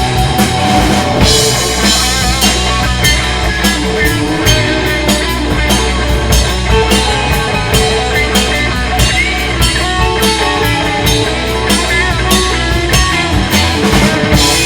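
Rock band playing live: a drum kit keeps a steady beat under guitar and bass.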